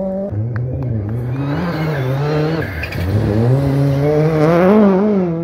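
Rally car engine under hard throttle on a gravel stage. The pitch drops about a third of a second in, dips again midway, then climbs and is loudest near the end as the car comes past, with gravel and stones thrown by the tyres.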